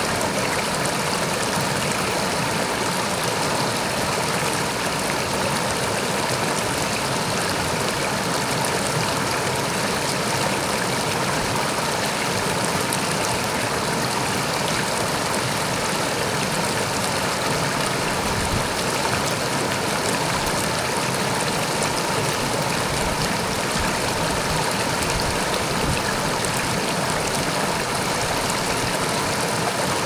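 River water rushing and splashing over boulders in shallow rapids: a steady, even rush with no let-up.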